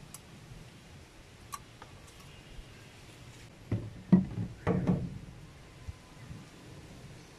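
A cluster of knocks and bumps about halfway through, from hands handling a plastic oil funnel in the engine's oil filler neck, with a few faint ticks before them.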